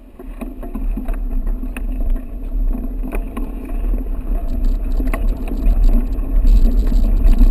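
Mountain bike riding a trail, heard from a bike-mounted action camera: wind rumbling on the microphone with tyre noise and scattered clicks and rattles from the bike, getting louder as speed builds.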